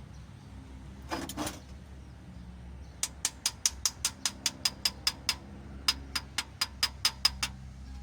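Two dull knocks about a second in, then two quick runs of sharp metallic clicks, about five a second, with a short pause between them, from metal tools and parts being worked while fitting camshaft bearing caps on a cylinder head.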